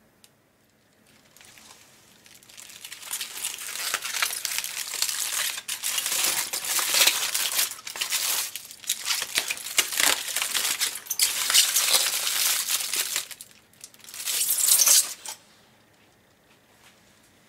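Aluminium foil crinkling as it is unwrapped by hand, in a run of crackly bursts that starts faintly, grows loud, and stops after a last short, loud burst near the end.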